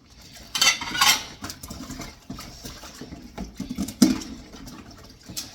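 Dishes being washed by hand: water splashing and plates and cutlery clattering, with two louder splashing surges about a second in and a sharp knock of a plate near the four-second mark.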